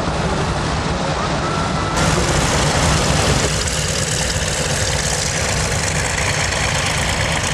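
Propeller aircraft engine running with a steady drone. The sound changes abruptly about two seconds in and again partway through.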